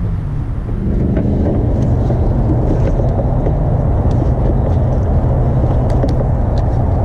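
A steady low rumble, with a few faint light clicks over it.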